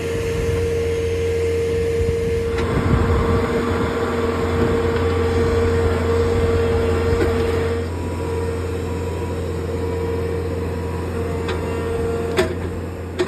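Skid steer running a hydraulic auger attachment: a steady engine hum with a constant whine over it. The noise grows rougher and fuller from about two and a half seconds in until about eight seconds in. There is a short click near the end.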